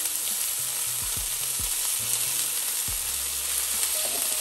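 Mushrooms, green peas and green beans sizzling in oil in a frying pan: a steady frying hiss.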